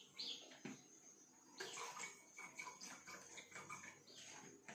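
Near silence with faint handling noises and a little liquid: lime juice being poured from a small bottle, with a few soft clicks.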